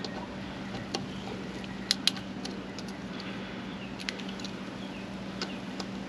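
A few light clicks and scratches from a small bit screwdriver working the fender screws on an e-bike, over a steady low hum.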